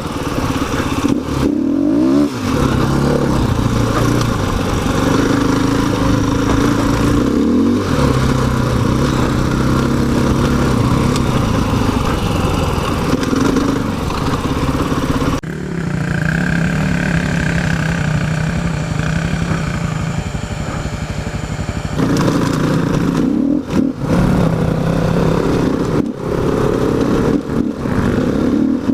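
Single-cylinder four-stroke engine of a KTM 500 EXC dirt bike running under way off-road, revving up and falling back with throttle and gear changes, with brief drops in engine note. It holds a steadier pitch for several seconds in the middle, with wind and rough-ground rattle on the mounted camera's microphone.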